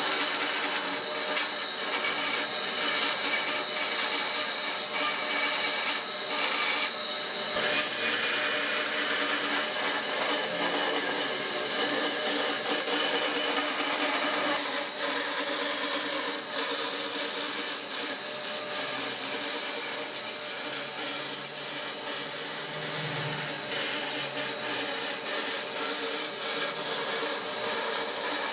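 Bandsaw running and cutting curves through a wooden board, the blade sawing steadily over the hum of the machine.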